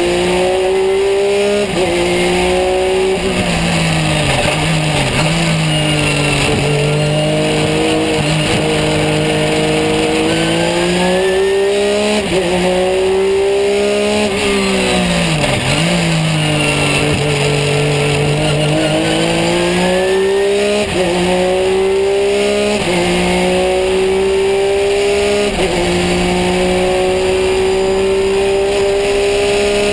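Porsche 911 GT3 R's flat-six race engine heard onboard at full effort, climbing in pitch through the gears with quick, sharp upshifts on its sequential gearbox. Twice the pitch falls away under braking for a corner and then climbs again on the way out.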